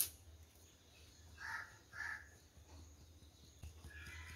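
Faint bird calls in an otherwise quiet room: two short calls about half a second apart, and another starting near the end, over a low steady hum.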